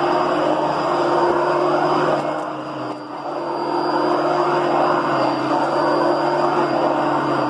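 Upright vacuum cleaner running steadily, its motor giving a constant hum with a high whine over it; the sound drops briefly about three seconds in, then comes back up.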